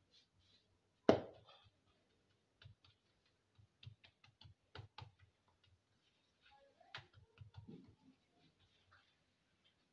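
Hands patting and pressing a ball of whole-wheat batbout dough flat on a floured granite counter: soft irregular taps and pats, with one sharper knock about a second in.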